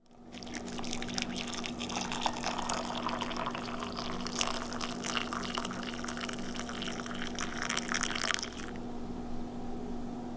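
Water poured from a kettle into a ceramic mug: a steady splashing stream that stops suddenly about two seconds before the end.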